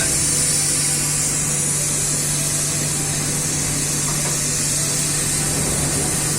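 Steady, loud industrial machinery noise: a constant hiss with a low hum underneath, unchanging throughout.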